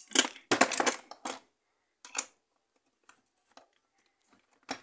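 Metal hand tools clinking as a ratchet handle, extension bar and 13 mm socket are handled and fitted together: several sharp clinks in the first second and a half, then a few lighter clicks and one more near the end.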